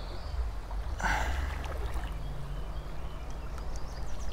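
Creek water sloshing and splashing around the legs of someone wading through the shallows, with a louder splash about a second in and another near the end, over a steady low rumble.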